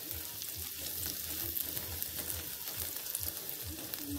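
Minced onion and garlic sizzling in hot oil in a stainless steel pan, stirred with a wooden utensil that scrapes and taps the pan now and then. The aromatics are being fried until fragrant.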